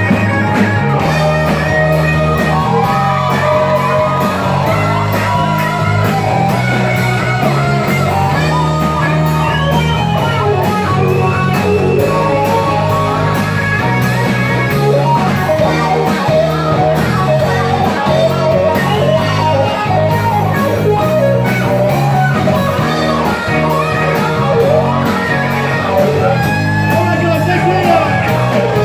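Live band playing loud: guitar and a steady bass line under a male singer, with drums ticking steadily.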